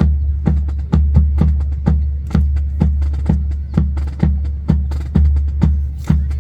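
Music with a steady, fast percussive beat: sharp wood-block-like clicks over a continuous deep bass, as played over loudspeakers to accompany a rifle drill display.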